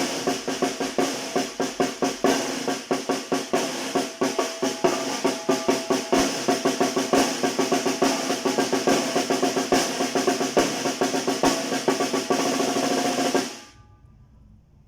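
Tarola (banda snare drum) played solo in a son rhythm, the simple beginner's version: quick strokes and rolls that stop abruptly near the end.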